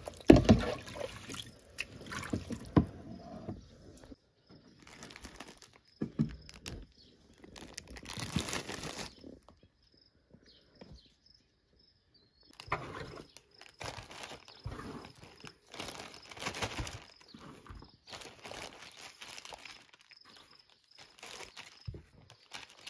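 Water splashing and dripping in short, separate bursts as blanched broccoli is lifted out of a cold-water bath and piled wet onto a plastic draining tray.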